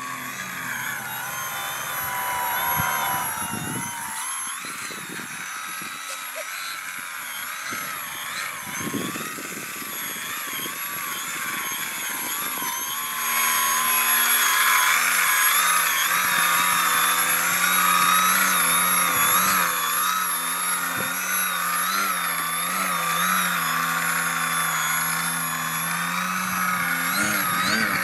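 Aerokinetix Yak 55M Pro radio-control aerobatic plane's motor and propeller running, the pitch wavering constantly as the throttle works through hovers and low passes over the water. About halfway through it grows louder, with a steady low hum added underneath.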